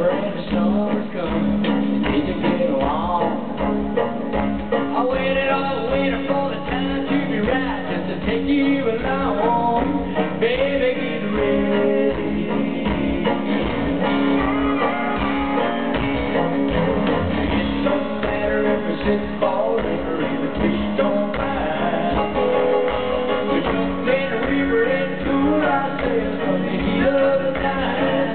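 Live country-rock band playing with a steady drum beat: banjo, electric guitar, drums and keyboards.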